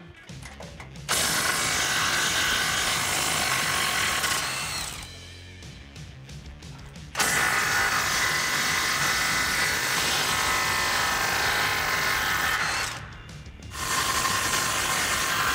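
Cordless impact wrench hammering off sway bar mount bolts in three long bursts of several seconds each, with short pauses between.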